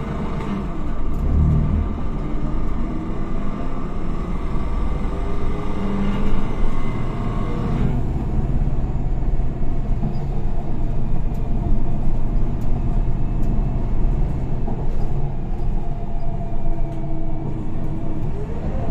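Diesel engine and Voith automatic gearbox of a Higer KLQ6129GQ2 city bus, heard from inside the cabin while driving. There is a steady rumble, with whining tones that rise and fall several times as the bus speeds up and changes gear. A higher hiss above it stops about eight seconds in.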